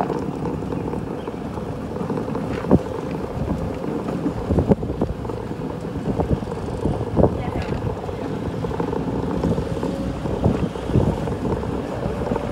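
Wind buffeting the microphone during a ride in a slow-moving vehicle, over a steady low rumble and hum, with scattered knocks and bumps.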